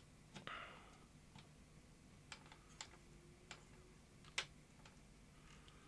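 Faint light clicks and taps of fingers handling the metal cassette-door mechanism of a Marantz SD420 cassette deck. There is a brief scrape about half a second in, and the sharpest click comes at about four and a half seconds.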